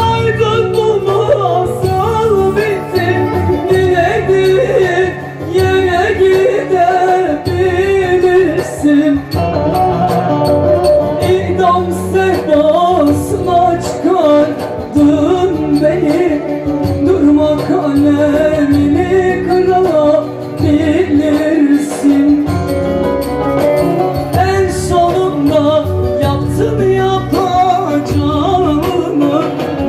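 A woman singing live into a microphone over a band accompaniment, her melody wavering and ornamented over a steady beat.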